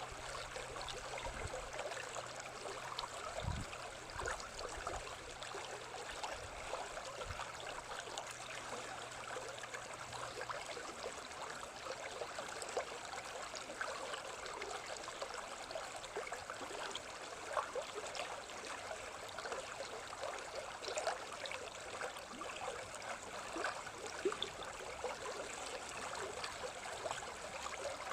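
A small stream babbling and trickling steadily, with a constant splashing patter of running water.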